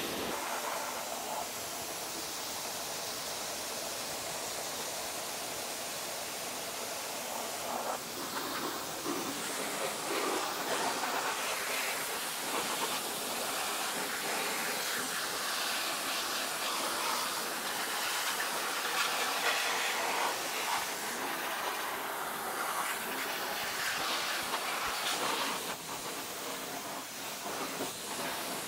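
Power washer wand spraying a jet of water across a car's engine bay: a steady hiss of spray whose level wavers as the jet moves over the surfaces.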